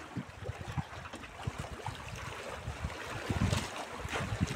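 Small waves lapping and splashing against shoreline rocks, with wind buffeting the microphone; a couple of sharper splashes come near the end.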